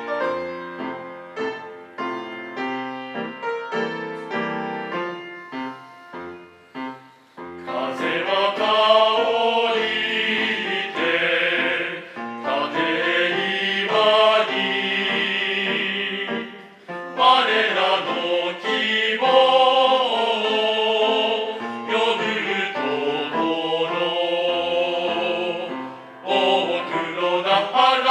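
A piano introduction, then a male voice choir of classically trained singers sings a Japanese school song with piano accompaniment, the voices coming in about eight seconds in.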